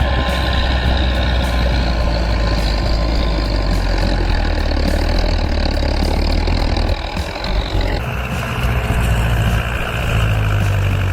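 Bulldozer diesel engine running steadily. It dips briefly and changes tone about seven to eight seconds in.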